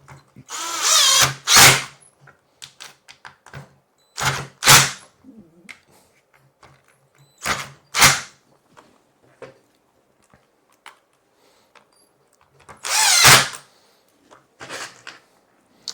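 Cordless drill driver run in short bursts, driving screws to fasten a metal caster to a plastic plant caddy. The bursts mostly come in pairs, a few seconds apart, with quiet between.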